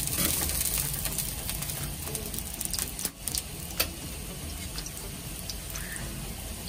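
Desi ghee sizzling and crackling on a hot tawa as burger buns toast on it, a steady hiss dotted with small crackles and one sharper click a little before four seconds in.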